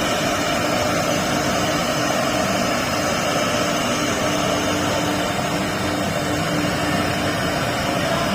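Four-head CNC router cutting plastic: the spindles run with a steady whine over a constant hiss of cutting.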